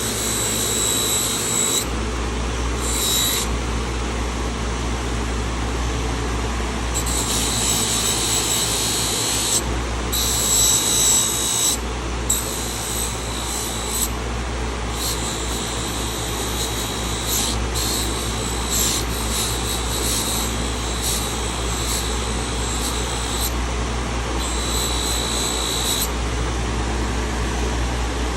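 Work Sharp Ken Onion belt sharpener running with a steady motor hum, while a carbon-steel pocket knife blade is drawn across its abrasive belt. The passes come one after another, about ten in all, each lasting one to three seconds and adding a high grinding hiss.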